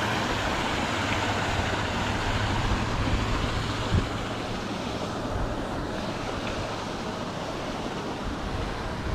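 Steady rushing outdoor noise with a low hum through the first half and a single sharp knock about four seconds in.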